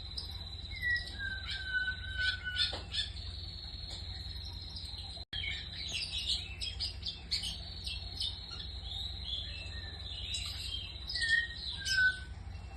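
A long-tailed shrike (pentet) singing a string of short chirps and sliding whistles. A steady high cricket-like tone runs for the first five seconds, and there is a low hum throughout.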